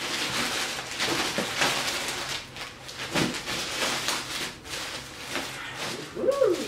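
Plastic mailing bags and polythene packaging crinkling and rustling as they are pulled open and clothes are drawn out, in an irregular run of crackles.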